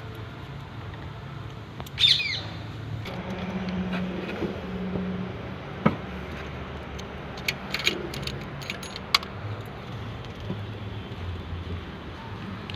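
Hand tools working on the engine: a few sharp metallic clicks and clinks scattered through, with a brief squeak about two seconds in, over a steady low hum.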